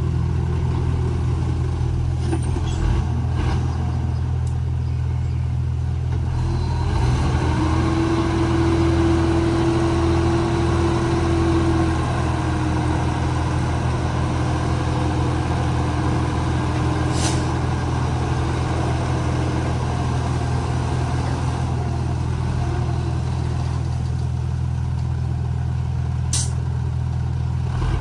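Komatsu D31P bulldozer's diesel engine running steadily under work. A higher whine comes in about seven seconds in and fades after a few seconds. Two short sharp clicks come later.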